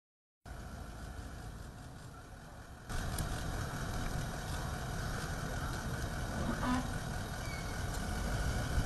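SUV engine idling steadily, a low rumble under outdoor background noise. It gets louder about three seconds in.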